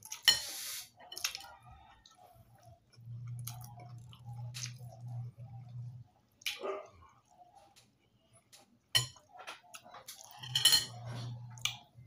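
Eating sounds: a spoon clinking and scraping in a bowl of fermented rice, fingers handling fried fish and rice on a plate, and chewing, as scattered sharp clicks and short rustles. A low hum comes in twice.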